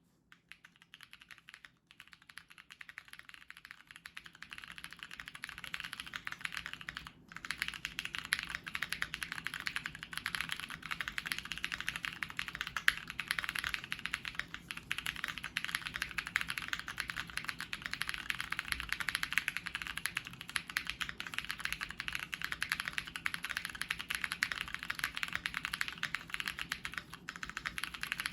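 Typing on a Keychron Q2 mechanical keyboard fitted with lubed Rosso Corsa switches, a polycarbonate plate, a PE foam mod and Domikey Hush keycaps. The key strokes come in a fast, continuous stream, building up over the first few seconds, with a short break about seven seconds in.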